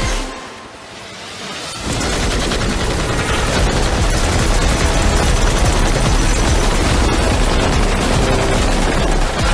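Sustained rapid gunfire, a dense, unbroken rattle of shots that starts suddenly about two seconds in after a quieter opening, with music beneath it.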